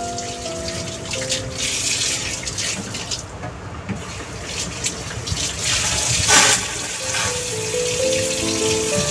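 Background music with a simple stepping melody, over the bubbling and hiss of chicken tinola soup boiling in a wide pot under a glass lid. The hiss swells about six seconds in.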